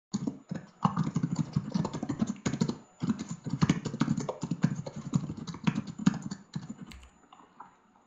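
Computer keyboard typing picked up through an open voice-chat microphone: a rapid, irregular run of key clicks that thins out and stops near the end.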